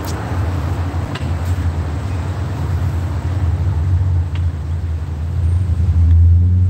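Low rumble of passing road traffic, growing louder near the end.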